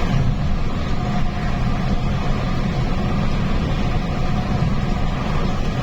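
Engine and road noise heard from inside a bus cruising on a highway: a steady low drone with a faint constant whine above it, unchanging throughout.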